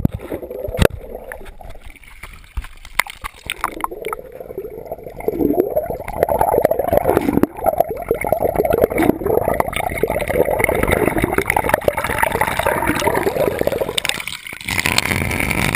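Water in a wooden trough gurgling and bubbling, heard from a camera held under the surface while the spout's stream pours in. There are a few sharp knocks and splashes at the start, and the sound turns brighter and hissier near the end, when the camera reaches the surface.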